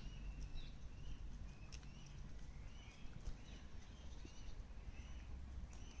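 Faint, repeated chirping of a bird, short arched calls about twice a second, over a low steady rumble, with a few sharp clicks.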